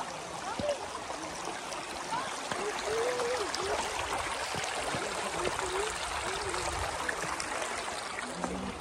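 Shallow river running and trickling over rocks and stepping stones: a steady rush of water.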